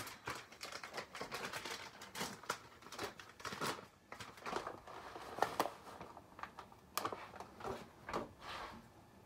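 A pound of shredded cheese being added to a full stockpot of tortilla strips and chicken: light, irregular crinkling and tapping, a few strokes a second.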